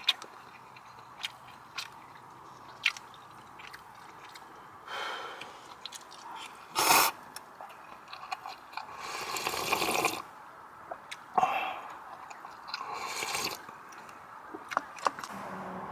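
Eating and handling food at a meal: light clicks and knocks of utensils and dishes, with a few brief rustling noises, the longest about a second, near the middle.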